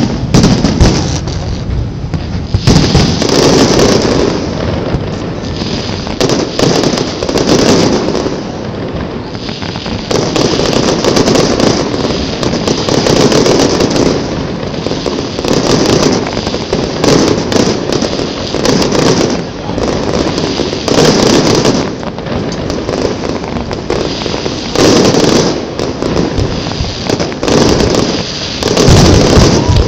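Aerial fireworks display: shells bursting in quick succession, a new burst every second or two, in a continuous barrage.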